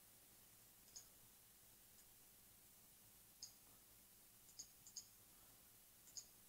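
Faint computer mouse clicks, about seven, spaced irregularly over near-silent room tone, two close together just before the middle.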